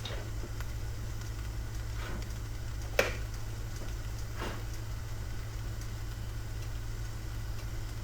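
Kitchen cooking sounds: a steady low hum with a few sharp clinks of cookware, the loudest about three seconds in.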